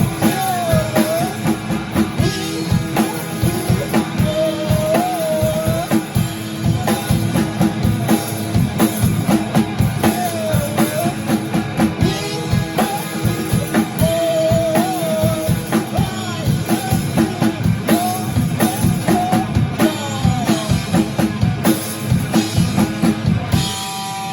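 Rock band playing a song: drum kit keeping a steady beat under guitar and a sung melody line.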